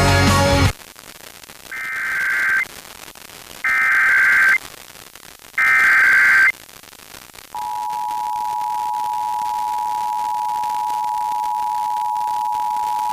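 Emergency Alert System test received over the radio. A brief burst of noise opens it. Then come three short bursts of the screeching digital SAME header tones, about two seconds apart, that encode the alert. About seven and a half seconds in, the steady two-tone attention signal starts and holds.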